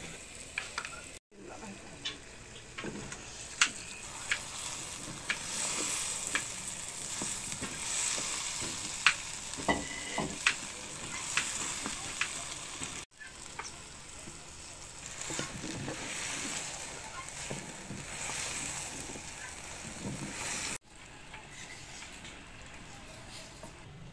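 Cauliflower and potato pieces sizzling in hot oil in a clay pot, stirred with a wooden spoon that clicks and scrapes against the pot. The sound cuts off abruptly three times.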